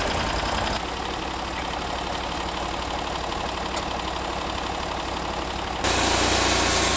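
Portable band sawmill's engine running steadily, getting abruptly louder about six seconds in.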